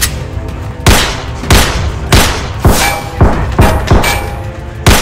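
Gunshot sound effects for toy blasters: about eight sharp shots, irregularly spaced over four seconds, each with a short echoing tail, over background music.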